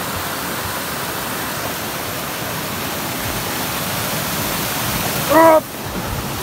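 Muddy monsoon runoff rushing over rocks and landslide debris in a steady torrent. About five seconds in, a short voice sound cuts through, and the rush is a little quieter after it.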